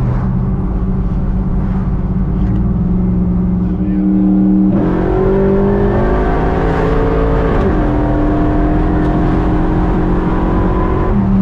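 383 stroker small-block V8 running steadily. The engine pitch steps up and climbs about five seconds in, falls back near eight seconds, and settles lower again near the end.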